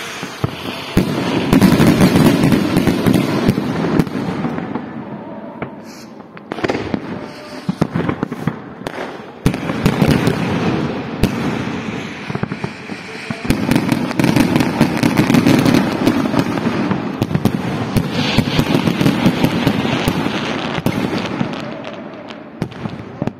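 Aerial fireworks display: dense barrages of rapid bangs and crackling shell bursts. The first long volley starts about a second in, and a second runs from about the middle to near the end.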